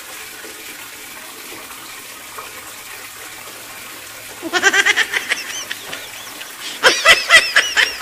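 Running water from a tap makes a steady, faint rush. About halfway through, and again near the end, a person laughs in quick, loud bursts.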